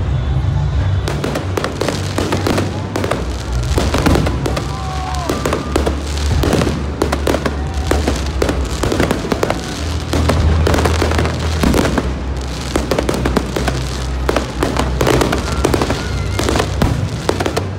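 Aerial fireworks display going off: dense, rapid bangs and crackling from bursting shells, one after another without a break.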